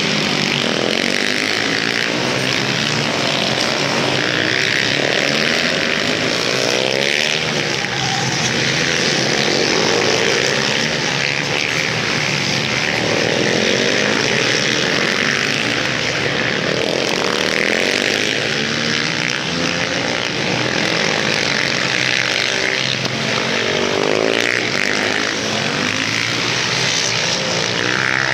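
A pack of supermoto racing motorcycles at full race pace, several engines revving up and falling away through gear changes and overlapping as they chase each other around the circuit.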